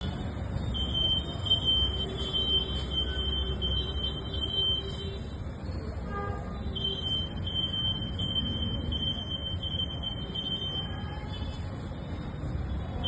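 Acousto-magnetic EAS anti-theft gate alarm sounding: a high, steady electronic tone that breaks off for about a second around six seconds in and then resumes. This is the alarm that signals a security tag detected at the gate. Under it runs a steady background din.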